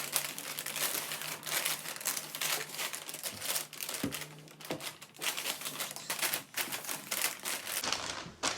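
Treat bags rustling and crinkling in a dense, irregular clatter as they are shuffled around by hand to mix them up.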